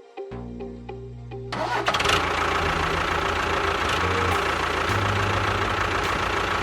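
A small motor starts running about a second and a half in and keeps going loudly and steadily, over background music.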